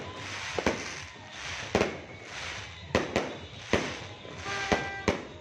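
Aerial fireworks bursting: about eight sharp bangs at uneven spacing, some in quick pairs, over a running crackle and hiss.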